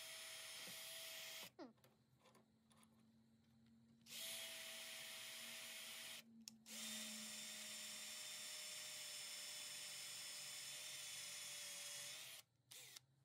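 Ryobi drill running at a steady whine as it drills out an old bolt head buried in a metal bench vise. It stops about a second and a half in, starts again around four seconds, cuts out briefly a little after six, then runs on until shortly before the end.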